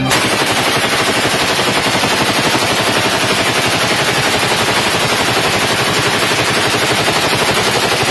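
Belt-fed machine gun firing one long, continuous burst: a rapid, unbroken stream of shots with no pause.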